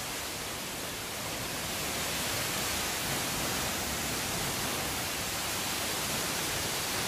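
Steady rushing hiss of a tall, thin waterfall falling down a rock cliff face.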